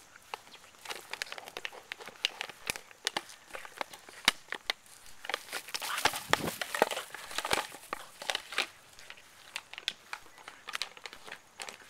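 A 2-liter plastic soda bottle crinkling and crackling in irregular snaps as a Boston terrier bites and shoves it around. The snaps come thickest a little past the middle.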